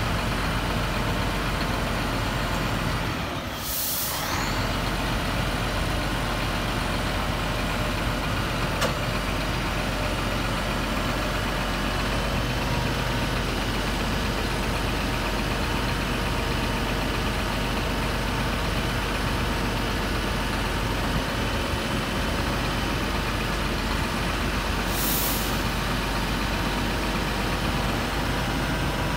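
Scania R124 truck's 12-litre six-cylinder diesel running steadily at idle, with two short hisses of released air, about three seconds in and again some twenty seconds later.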